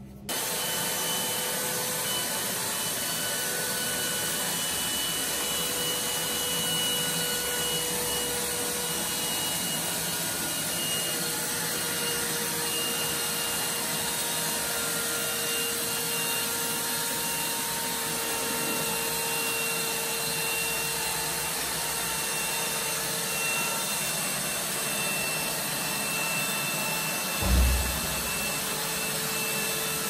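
Homemade robot vacuum cleaner running, its three-phase brushless suction fan motor giving a steady rushing whine with a few faint steady tones. It comes in abruptly just after the start, and there is one low thump near the end.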